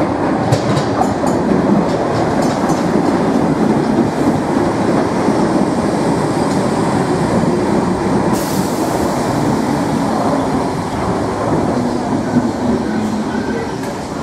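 Electric passenger train running along the platform with a steady rumble and wheels clicking over the rail joints, plus some wheel squeal. A higher hiss joins about eight seconds in.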